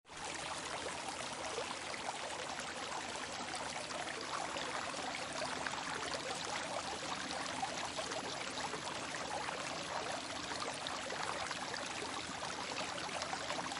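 Running water of a stream or brook, a steady babbling rush with fine splashing that does not change.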